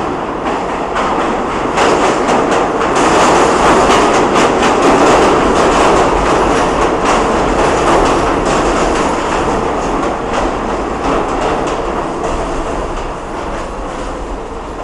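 R46 subway train running into the station: a steady rail rumble with rapid clicking of wheels over rail joints. It is loudest a few seconds in and eases off steadily as the train slows toward its stop.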